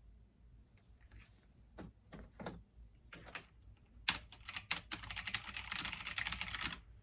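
Typing on a computer keyboard: a few scattered keystrokes, then fast, continuous typing from about four seconds in that stops suddenly near the end.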